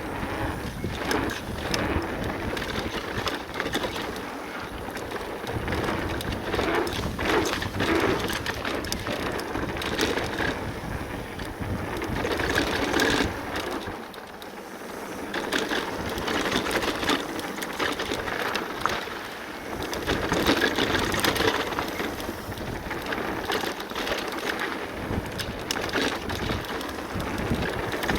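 Cube full-suspension e-mountain bike riding down a dirt bike-park trail: tyres crunching over dirt and stones with a steady stream of small knocks and rattles, swelling and easing every few seconds.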